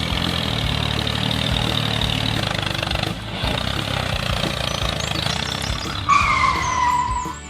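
A vehicle sound: a steady engine-like noise, then a falling squeal about six seconds in that lasts just over a second.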